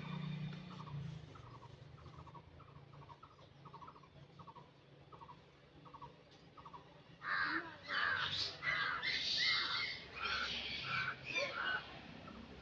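Crows cawing: a quick string of loud, harsh calls starting about seven seconds in. Before it comes a faint, evenly repeated chirp about twice a second.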